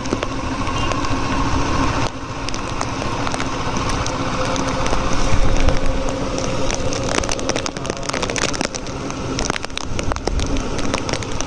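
Heavy rain and the noise of a vehicle driving on a wet road, with many small crackles from raindrops.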